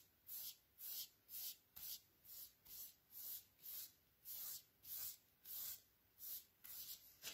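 A wide flat paintbrush spreading gesso over a painted surface, giving faint, short swishing strokes back and forth at a steady rhythm of about two a second.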